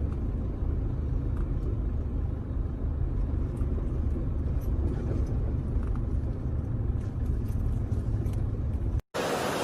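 A low steady rumble with faint scattered clicks above it, like a vehicle or wind on the microphone; just after nine seconds it cuts off and gives way to a steady hiss.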